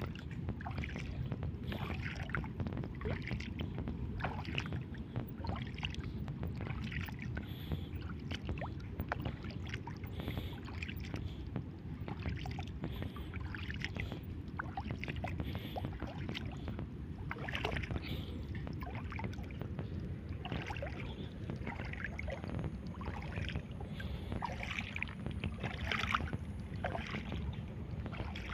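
Shallow seawater sloshing and splashing in irregular small bursts over a steady low rumble.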